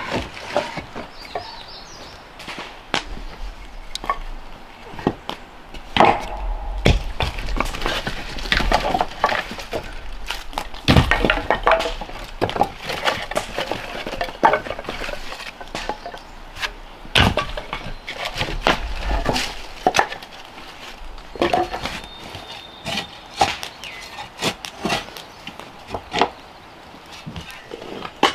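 A run of irregular sharp knocks and hard impacts from hand-tool work, some spaced by a second or more and others in quick clusters, with a few scraping and clinking sounds between them.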